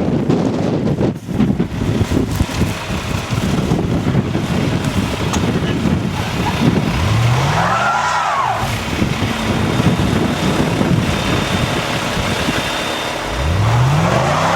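A car engine revs up and back down twice, about seven seconds in and again near the end, as a car stuck in snow spins its tires, with a whine rising and falling with the revs. Wind buffets the microphone before the first rev.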